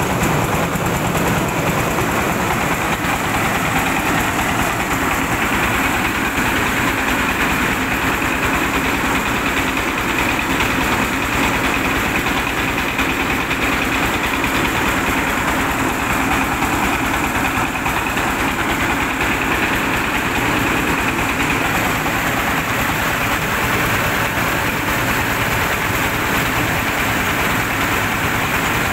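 Engine-driven rice milling machine running steadily and loudly while it hulls paddy, with grain pouring from its outlet chute.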